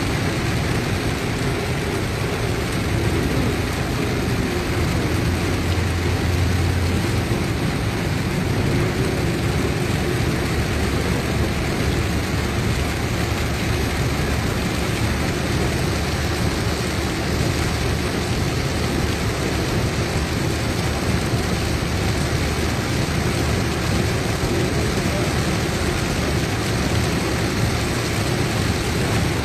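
Heavy rain on a moving car, heard from inside the cabin: a steady hiss of rain and tyres on the wet road over a low rumble.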